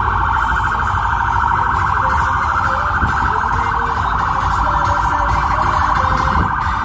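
A vehicle's electronic siren giving a loud, rapid, unbroken warble that starts abruptly, over a low rumble of traffic.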